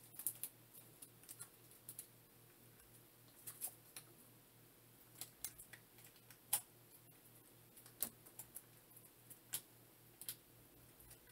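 Faint crinkling and tearing of small Arby's sauce packets being worked open by hand, heard as scattered short clicks and crackles, over a low steady hum.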